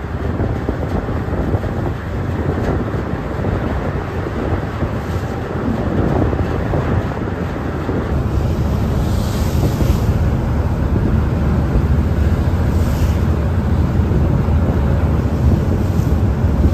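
Wind buffeting the microphone over open water: a dense, steady rumble that grows a little heavier about halfway through.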